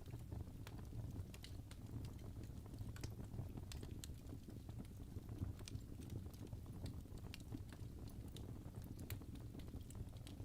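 Wood fire burning in a fireplace: logs crackling with irregular small snaps and pops over a steady low rumble of the flames.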